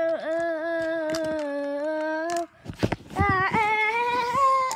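A child humming long, held notes. A low note lasts about two and a half seconds, then after a brief break with a few clicks, a higher note comes in and rises slightly.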